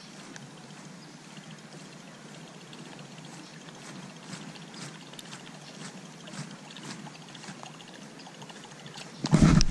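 Light rain falling steadily on pond water, a soft even patter with faint scattered ticks of drops. Near the end a sudden loud burst of noise cuts in.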